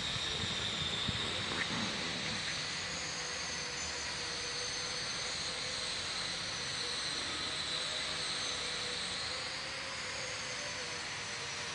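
Steady mechanical whirring with a held high-pitched whine, running evenly throughout.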